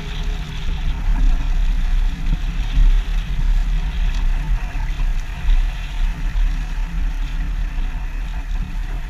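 Gusty wind buffeting the microphone aboard a sailboat under way, with the rush of water along the hull.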